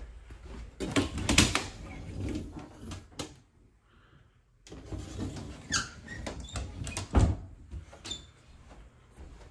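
Bifold closet doors are pulled open, rattling and clicking on their track about a second in. A few seconds later they are pushed shut with more rattling, ending in a sharp knock as they close.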